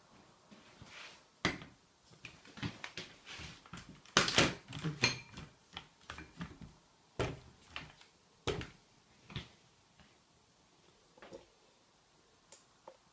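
A white ceramic bowl and a black plastic elevated dog bowl stand being handled and fitted together: a run of knocks and clatters, busiest about four seconds in, then a few single sharp knocks and faint ticks near the end.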